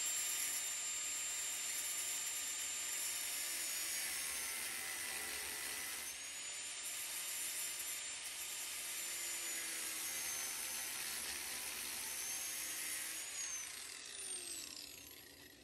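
Small angle grinder with a cutoff wheel slicing into a rivet head on a 1964 Ford F100's steel frame, to loosen the rivet before it is punched out. A steady high whine that sags in pitch twice as the wheel bites in, then the motor is switched off and winds down near the end.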